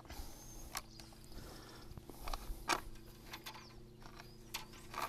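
Insulated electrical conductors being pulled by hand through a short PVC conduit, with scattered faint clicks and scrapes as the wires rub and shift.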